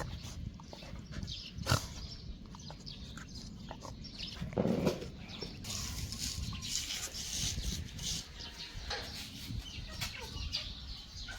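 Scattered animal sounds with short clicks and scuffs, and one louder low sound about four and a half seconds in.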